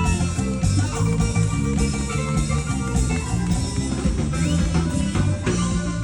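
Instrumental dance music with guitar, bass and drum kit playing a steady beat, with no singing.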